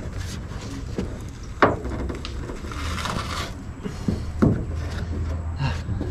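A taped-on trim piece being pried off a pickup bed with a screwdriver, no heat gun used: scraping and creaking, broken by a few sharp cracks as the double-sided tape and trim give way, the loudest about a second and a half in, again about four and a half seconds in, and at the end.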